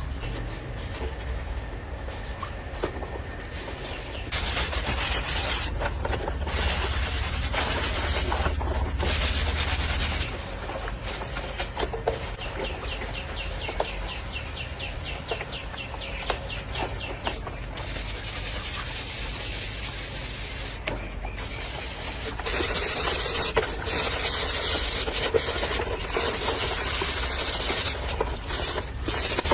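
Scraping and rubbing from hand work on a part, like sanding or filing, in short shots that change abruptly every few seconds. About halfway through there is a run of quick even strokes, about five a second.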